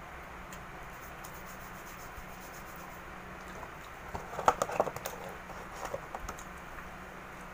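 Cardboard pizza box being handled, its lid pushed down: a cluster of light taps and rustles about four seconds in, with a few more a second or so later, over a steady low hum.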